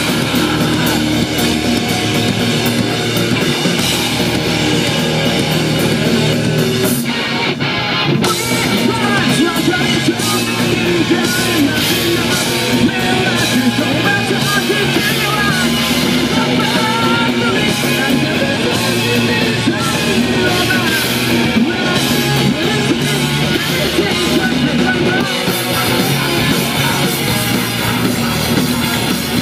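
Rock band playing live through a PA: electric guitars and drums with a singer's voice over them, loud and continuous.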